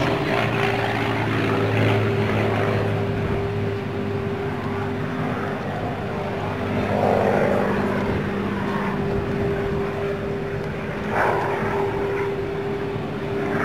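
P-51D Mustang's Packard Merlin V-12 engine and propeller droning steadily as the fighter flies an aerobatic display, heard from the ground; a deeper tone in the drone drops away about four seconds in.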